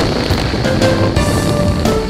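Background music with a steady drum beat and melody.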